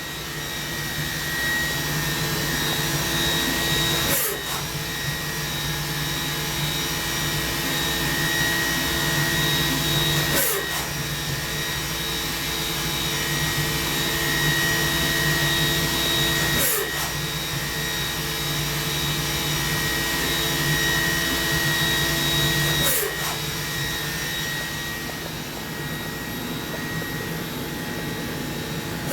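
Mori Seiki NV4000DCG vertical machining center running on a test run: a steady whir with a thin high whine. About every six seconds, four times in all, a short click comes with a brief falling sweep.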